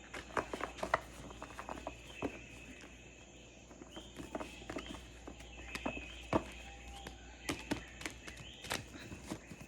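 Recorded jungle ambience with a steady high tone, broken by scattered light clicks and taps.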